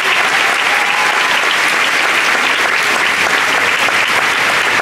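Large audience applauding: many hands clapping in a dense, steady wash.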